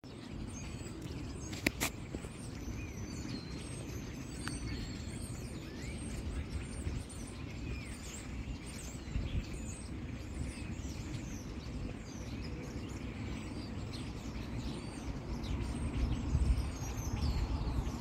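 A flock of small birds chirping, many short overlapping calls throughout, over a steady low rumble that grows louder near the end. Two sharp clicks come about two seconds in.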